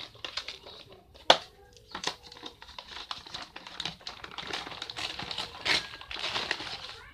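Printed paper and cardboard toy packaging crinkling and rustling as it is pulled open by hand, with scattered sharp clicks, the loudest about a second in.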